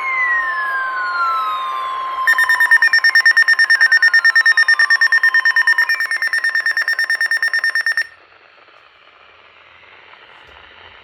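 Weather radio alert: a steady warning tone with three falling tones over it, then a loud, rapidly pulsing alarm beep at about seven beeps a second from about two seconds in. The beeping cuts off sharply about eight seconds in, leaving faint radio hiss.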